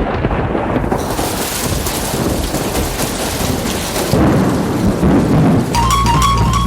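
Recorded thunderstorm sound effect, heavy rain with rolling thunder, starting the soundtrack for a rain-themed dance. About a second before the end, music with steady bass and melody notes comes in over it.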